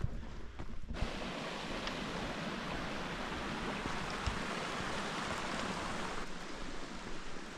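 Mountain creek water rushing over rocks, a steady splashing hiss that starts abruptly about a second in and cuts to a quieter background near the end.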